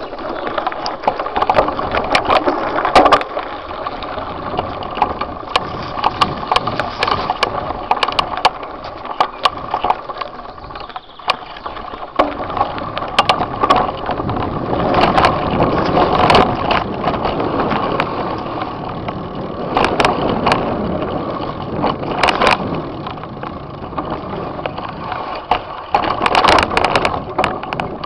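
Mountain bike riding down a gravel and dirt trail, heard through a handlebar-mounted camera: continuous rattling and clattering of the bike, tyres crunching over the ground, and many sharp knocks from bumps.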